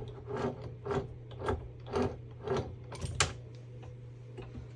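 Ratchet wrench with an extension clicking in short, even strokes, about two a second, as it backs off the steering wheel's 30 mm retaining nut, stopping a little past three seconds in.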